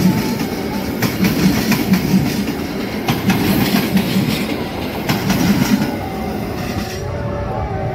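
Passenger train coaches passing close at speed: steel wheels clatter over the rail joints in a quick run of clicks over a steady rumble. The noise eases and dulls near the end as the last coach goes by.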